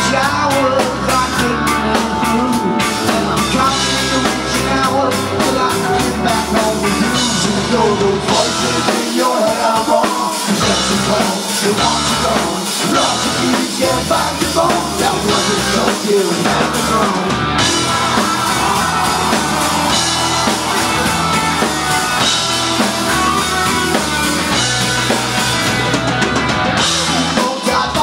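Live punk rock band playing loud: drum kit, electric guitars and bass guitar together, the low end dropping out for moments about ten seconds in.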